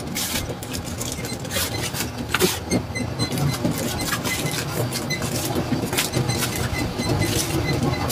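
Foil pouches crinkling and rustling as they are handled, a quick scatter of crackles over a steady low hum.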